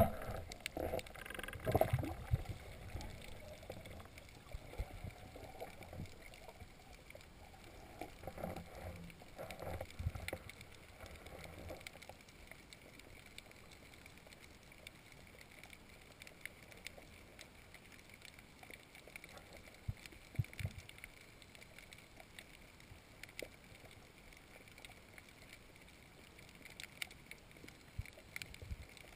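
Underwater ambience heard through a camera housing: muffled water movement with irregular bumps and swishes through the first dozen seconds, then quieter, with scattered faint clicks.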